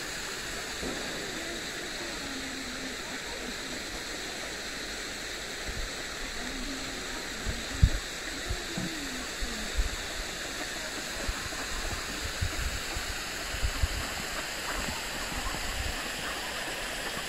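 Steady rush of flowing water, as from a stream or small waterfall. A few dull low thumps come through the middle, the loudest about eight seconds in.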